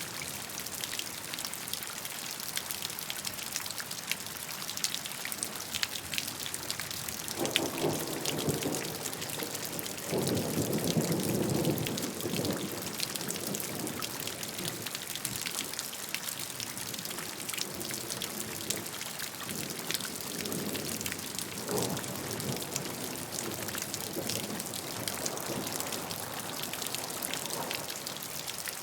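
Steady rainfall: a dense hiss of drops pattering on a surface. Deeper, louder swells come in about eight and eleven seconds in, with weaker ones later.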